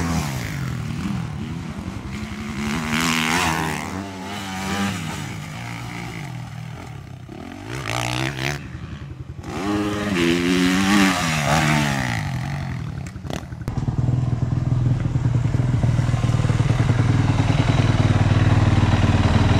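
Motocross bike engine revving up and down as the bike is ridden around a dirt track. About 14 seconds in it gives way to a louder engine running at a steady pitch.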